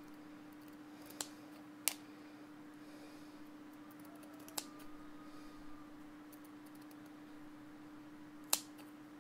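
Scissors snipping through plastic garlic-net mesh that is stiffened with dried aluminium paint, which cuts hard: four short, sharp snips, the loudest near the end, over a faint steady hum.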